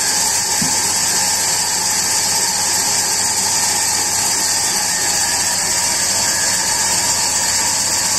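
Sawmill machinery running steadily: a constant loud hiss over a low hum, with no change through the whole stretch.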